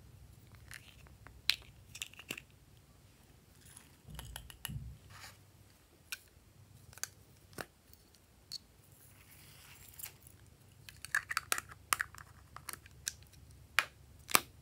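Hands handling small plastic toy containers, their lids opened and closed: scattered sharp plastic clicks and taps, a dull bump about four seconds in, and a quick flurry of clicks past the two-thirds mark.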